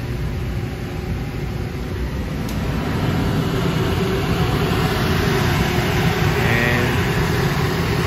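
Carrier split-system air handler running with its belt-driven blower turning, a steady machine hum that grows louder about three seconds in. The unit is back in service on a newly replaced drive belt.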